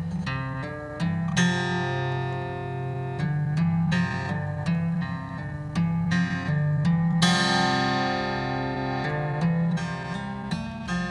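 Instrumental background music: a run of short notes with a few longer held chords.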